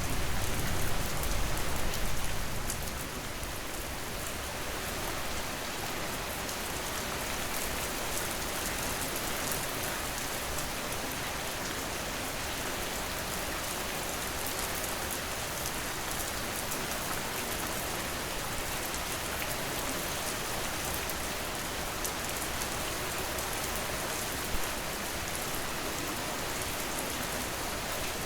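Steady rain falling on a surface, a dense even hiss of drops. A low rumble under it in the first few seconds dies away, and there is one brief louder tap near the end.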